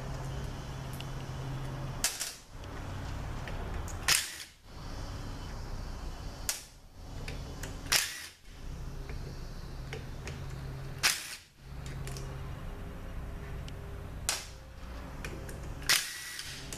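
Cordless drill/driver backing out the bolts of an automatic transmission's oil pump, its motor running in short stretches with a low hum. About seven sharp clacks are spread through, each followed by a brief drop in level.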